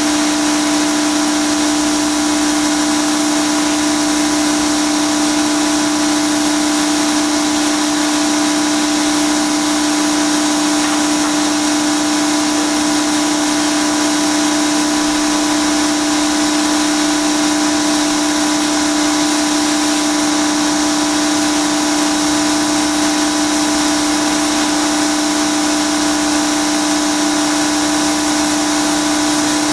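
Pressure washer running steadily: a constant machine hum under the hiss of the spray, with no change in pitch or level.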